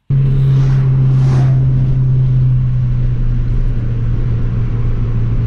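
Abarth 695 70th Anniversary's turbocharged 1.4-litre four-cylinder running at a steady pitch while the car drives, heard from inside the cabin with wind noise over the microphone. It starts suddenly.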